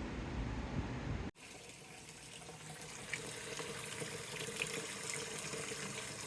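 A low rumble of outdoor air noise that cuts off suddenly about a second in, followed by a tap running water into a sink or basin, a steady splashing hiss that grows slightly louder.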